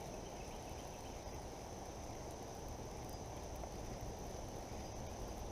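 Insects, such as crickets, buzzing steadily as one continuous high drone, over a low, even rush of flooded creek water.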